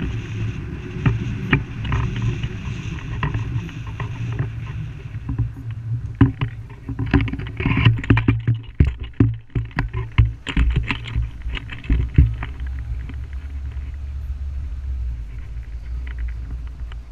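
Low rumble of wind and motion on a vehicle-mounted action camera's microphone, with a run of irregular knocks and thumps through the middle as it rolls over rougher ground.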